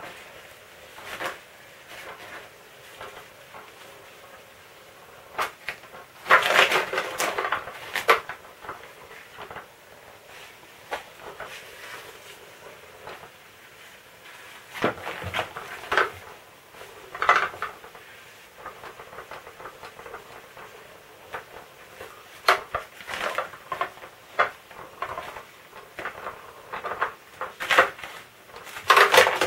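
Irregular scratchy rustling and light clattering from a battery-powered 'catch the mouse' cat toy: its wand sweeps under the nylon cover while cats pounce and paw at the fabric. Louder bursts of rustling come about six seconds in, around the middle, and again near the end.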